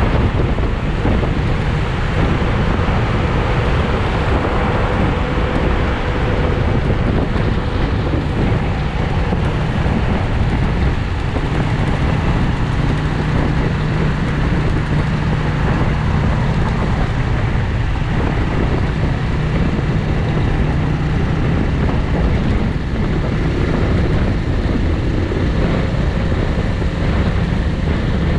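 Bristol 250 Classic motorcycle riding at a steady speed, with wind rushing over the microphone on top of a steady engine hum and tyre noise. The engine hum grows a little stronger around the middle.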